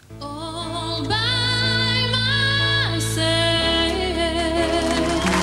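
Music fading in: a singer holding long notes with vibrato over sustained accompaniment. The bass and chord change about three and a half seconds in.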